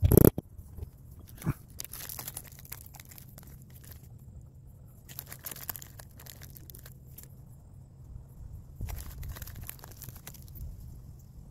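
Leather and hand tools being handled at a workbench. A sharp knock comes at the start and a smaller click about a second and a half in, then bouts of crinkling and scraping.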